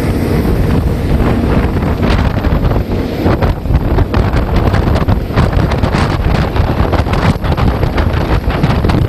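Heavy wind buffeting the microphone and water rushing and splashing as a small boat runs fast through choppy sea, with irregular gusts from about two seconds in.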